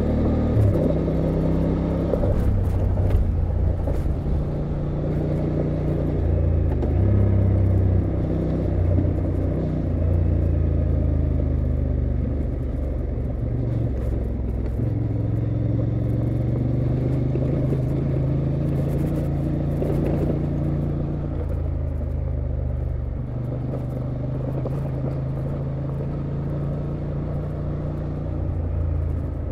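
Honda XL750 Transalp's 755 cc parallel-twin engine running under way. Its pitch rises and falls several times as the throttle and gears change.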